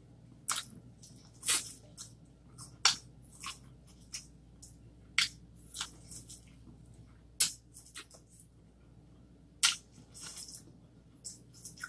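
Close-up eating sounds: biting into and chewing boiled corn on the cob, with irregular short mouth smacks and clicks.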